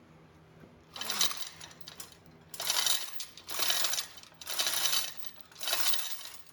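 Metallic ratcheting in repeated strokes, about one a second, starting about a second in, from hand tool work on a tractor transmission.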